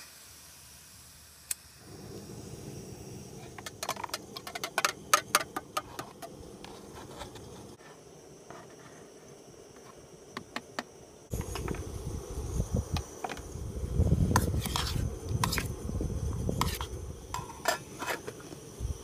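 Knife and utensils clinking and tapping on a steel canteen cup and plastic cutting board as diced Spam is scraped into the cup. The taps come in two clusters of sharp clicks, over a low rumble that gets louder about halfway through.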